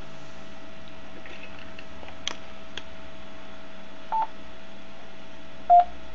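Amateur radio transceiver beeping on key presses while its frequency is being set to 145.800 MHz, the ISS downlink: two short beeps, one about four seconds in and one near the end, with a few faint clicks. Under them runs a faint steady tone with hiss.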